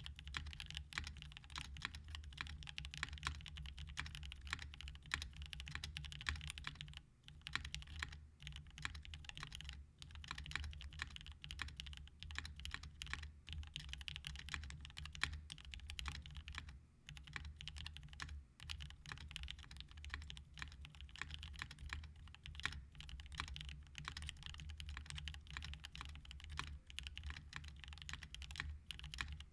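Fast, continuous typing on a custom mechanical keyboard with Gateron Black Ink V2 linear switches, lubed with Krytox 205g0 and fitted with Durock films, under GMK doubleshot keycaps; key strikes run together in a steady stream with a few brief pauses.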